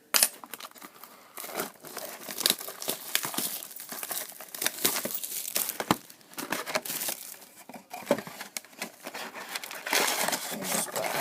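Plastic wrapping on a sealed trading card box crinkling and tearing as it is pulled off by hand, an irregular run of crackles and sharp clicks.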